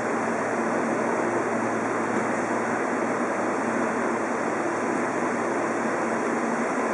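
Seibu 20000 series electric train standing at the platform, its onboard equipment giving a steady rushing hum with a few faint steady tones underneath.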